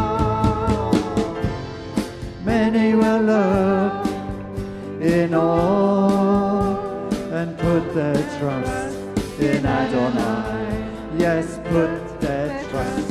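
Live worship band playing a song: voices singing over acoustic guitar, bass guitar and a drum kit keeping a steady beat.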